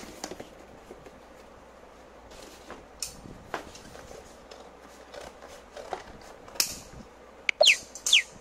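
Cardboard being handled and slid over a tiled floor: scattered rustles, light knocks and scrapes, with a few louder clatters and two short squeaks near the end.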